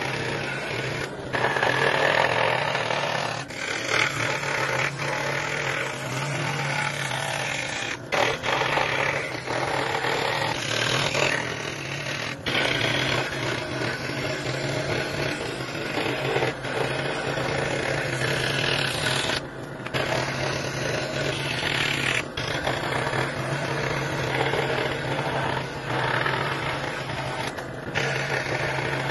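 An electric power tool motor running with a steady hum while it works wood, the cutting or sanding noise swelling and easing, with several brief breaks.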